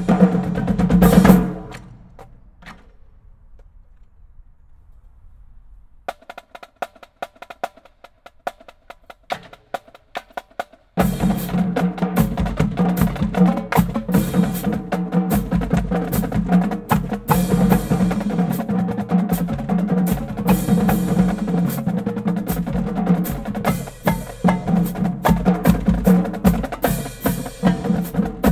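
Marching drumline of snare drums, tenor drums, bass drums and crash cymbals playing a warm-up exercise. A loud ensemble hit rings away within about two seconds and is followed by a pause. Light, sparse strokes come in about six seconds in, and the full line re-enters loud at about eleven seconds, playing steadily to the end.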